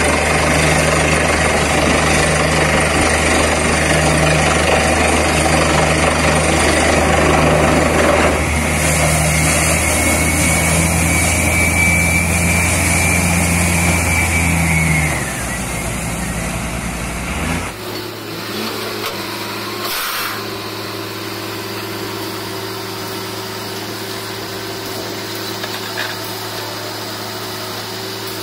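Borewell drilling rig and its air compressor running with a loud, steady drone, then past the middle the sound drops in two steps to a quieter, steady engine hum.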